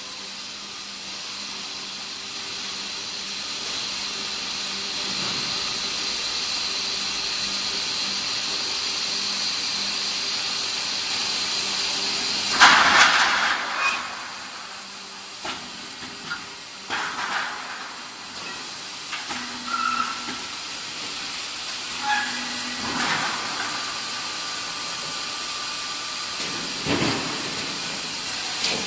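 An AAC block plant's steel-pallet dispenser working: a steady machinery hiss, then a loud rush of air about twelve seconds in. Scattered metal clanks and knocks follow, with the heaviest thump near the end.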